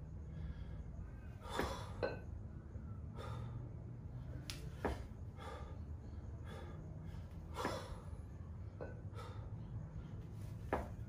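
A man's sharp, forceful breaths, snorted through the nose and puffed out of the mouth, in time with double 16 kg kettlebell jerks. They come about every three seconds, often in pairs, over a steady low rumble.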